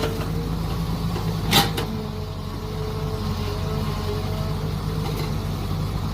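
Mini excavator's engine running steadily, with a single sharp knock about a second and a half in.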